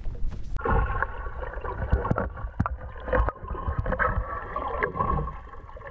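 Brief wind rumble, then muffled underwater sound from a submerged camera: water gurgling with scattered clicks and a faint steady whine.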